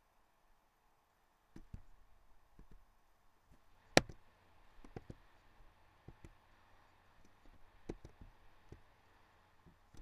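Faint, scattered clicks and taps at irregular intervals, with one sharp, louder click about four seconds in.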